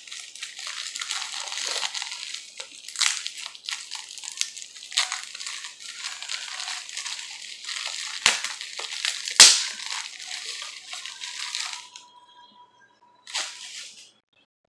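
Thin plastic bag crinkling and rustling as a glass bong is unwrapped from it, with a few sharp clicks, the loudest about nine seconds in. The rustling stops about twelve seconds in, with one short rustle after.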